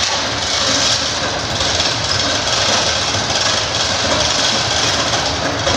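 Steady, loud machinery noise: an even hiss over a low rumble, with no clear beat.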